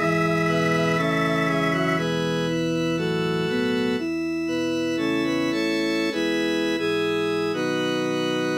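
Synthesized organ-voiced MIDI playback of a choral part-song, rendered from NoteWorthy Composer notation as a soprano practice track. Sustained chords move note by note, each held roughly half a second to a second.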